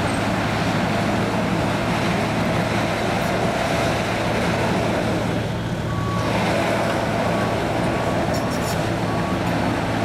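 Case 650M WT crawler dozer's diesel engine running steadily under load while pushing dirt. About six seconds in the sound dips briefly, then a backup alarm starts beeping about once a second as the dozer reverses.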